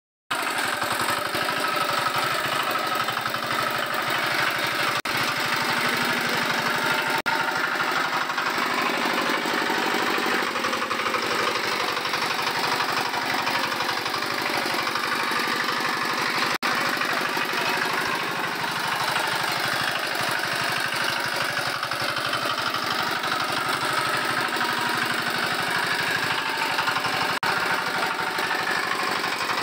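Small single-cylinder engine of a walk-behind power weeder running steadily under load, with a fast, even knocking beat as the tines work the soil. Its sound drops out for an instant a few times.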